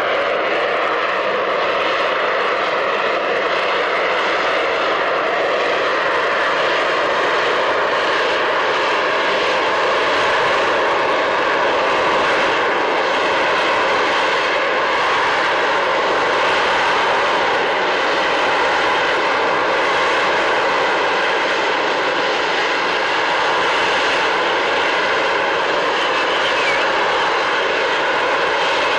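Harrier GR7's Rolls-Royce Pegasus jet engine running loud and steady, a dense roar with a constant high whine of several tones, as the jet holds a hover.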